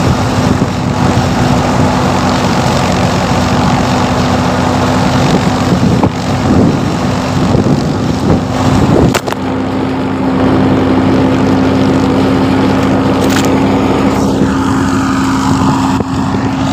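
Wheat thresher driven by a Fiat 480 tractor running steadily under load, a loud even drone with a steady low hum, mixed with heavy wind buffeting the microphone. A couple of short sharp knocks come in around the middle.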